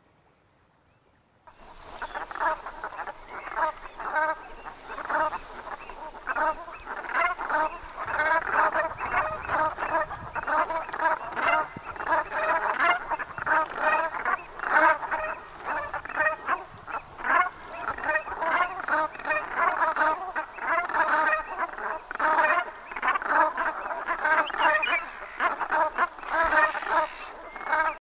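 A flock of brent geese calling: a dense, continuous chatter of many short overlapping calls, starting about a second and a half in.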